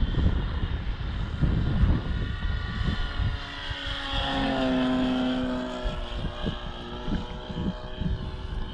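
Sig Hog Bipe model airplane's engine buzzing in flight, heard most clearly about a third of the way in as the plane passes, its pitch falling a little, over heavy wind buffeting on the microphone.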